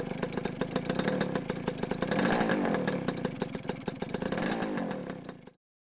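Two-stroke motorcycle engine running with a rapid rattly beat, revving up briefly about two seconds in, then fading out just before the end.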